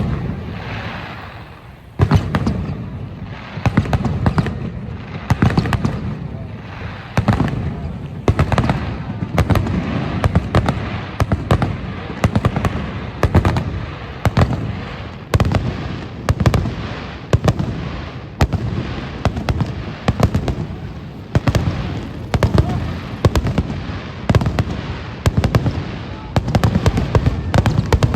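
Aerial fireworks bursting in a rapid barrage, sharp bangs coming one to three a second, each followed by a low rumbling echo.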